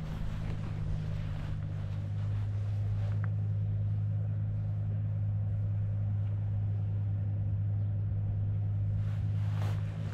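Machinery running with a steady low drone that holds at one pitch throughout.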